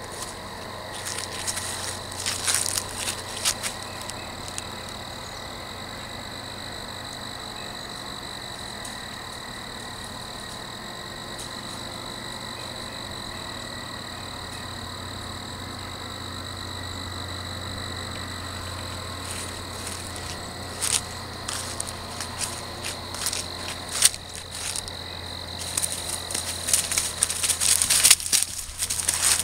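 A steady high-pitched drone over a faint low hum throughout. Toward the end, dry fallen leaves crackle and rustle in quick, scattered bursts as feet and paws run through them close by.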